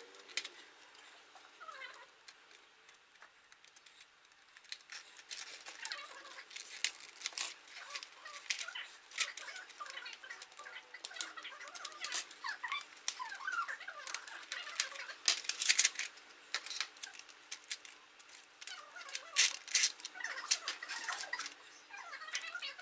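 ABS plastic keycaps in a clear plastic blister tray being handled: irregular clicks and rattles of plastic, with short squeaky creaks, over a faint steady hum.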